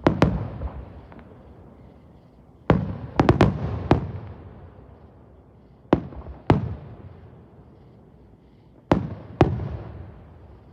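Fireworks going off: about ten sharp bangs in clusters of two to four, a few seconds apart, each trailing off in a rolling echo.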